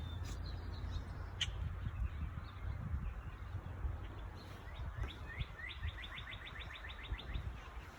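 Small bird calling: a few scattered chirps, then a fast run of rising chirps, about eight a second for two seconds, over a steady low rumble.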